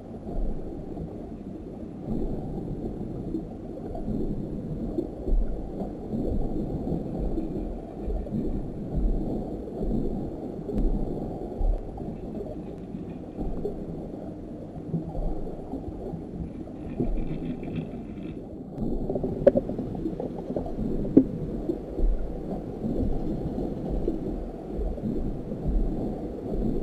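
Muffled underwater rumble of moving water picked up by a camera in a waterproof housing, swelling and ebbing irregularly, with a few sharper knocks a little past the middle.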